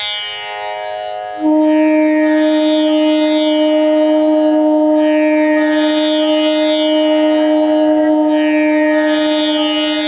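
A large G-sharp bamboo bansuri comes in about a second and a half in and holds one long steady note over a shimmering tanpura drone tuned to G-sharp. The held note is Pa, sounded to check the flute's tuning against the drone, and it matches well.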